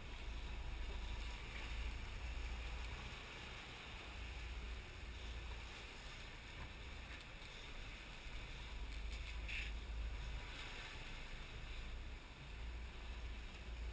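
Steady low rumble and rushing noise aboard a sportfishing boat underway: its engines with water wash and wind over the flybridge.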